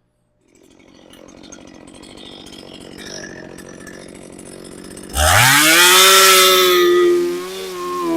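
Stihl MS270 two-stroke chainsaw running at low throttle at first, then revved hard about five seconds in, its pitch sweeping sharply up to full speed. It is held there for about two seconds, eased off briefly and revved up again near the end; the freshly tuned saw runs strongly at full throttle.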